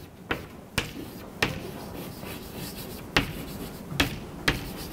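Chalk writing on a blackboard: about six sharp taps, irregularly spaced, as the chalk strikes the board, with faint scraping between strokes.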